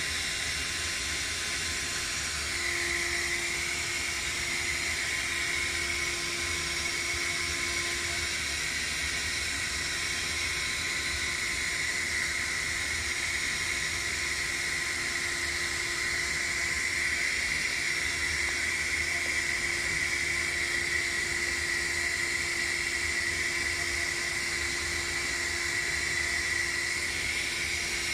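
Vacuum cleaner running steadily, its hose sucking dust out of a tankless water heater's fan housing, with a steady high whine that strengthens about three seconds in.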